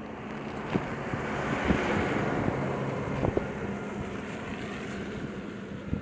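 A rush of noise that swells to a peak about two seconds in and then eases off, with a few soft clicks and a faint low hum underneath.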